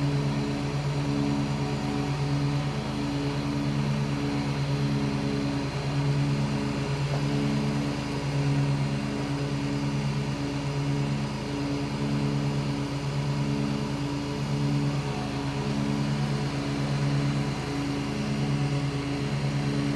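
Ride-on lawn mower's engine running steadily, its low drone wavering slowly.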